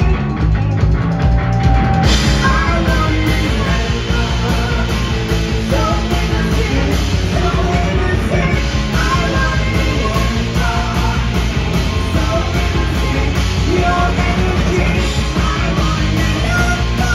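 Punk rock band playing live: distorted electric guitars, bass and drum kit driving a fast, steady beat, with a singer's voice over it. About two seconds in, the sound turns brighter and fuller.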